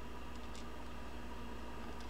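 Steady low electrical hum and hiss of room tone, with two faint small ticks about half a second in.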